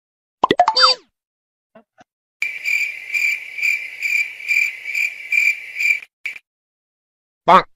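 Stock cricket-chirping sound effect, the kind used to mark an awkward silence: a regular string of chirps, a little over two a second, lasting nearly four seconds. It is framed by two shorter effects, a brief sound with gliding pitch shortly after the start and a short burst near the end.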